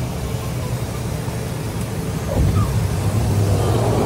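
Light passenger plane's engine and propeller drone heard inside the cabin, a steady low hum that grows louder about two and a half seconds in.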